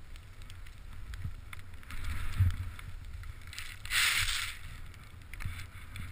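Wind rumbling on a first-person camera's microphone as a rider descends through deep powder snow, with hissing swishes of spraying snow, the loudest about four seconds in.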